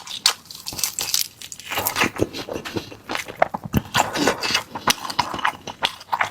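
Close-up eating of an air-fried chicken leg roll: irregular biting and chewing, with the crisp, browned chicken skin crunching and crackling.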